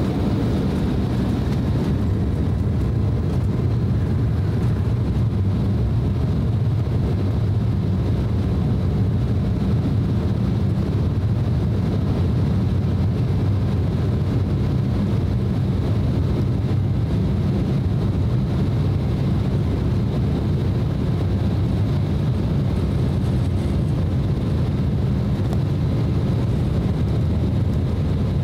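Embraer E190 airliner's twin turbofan engines at takeoff power, heard from inside the cabin as a steady low rumble, with the jet rolling and gathering speed down the runway.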